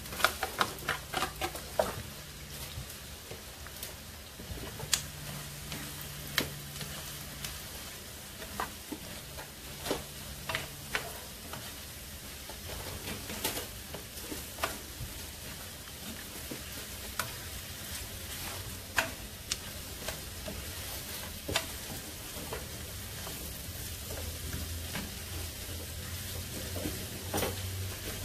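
Sliced mushrooms, green bell pepper and onion sizzling in melted butter in a frying pan. A spoon knocks and scrapes against the pan as the food is stirred, with a quick run of knocks in the first two seconds as the mushrooms are pushed in, then single knocks every second or few.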